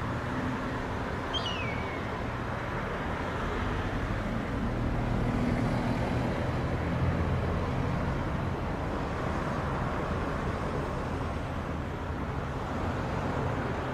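Distant jet engine noise from an Airbus A321neo's Pratt & Whitney geared turbofans as it climbs out after takeoff. It is a steady rumble that swells a little midway. About a second and a half in there is one short falling whistle.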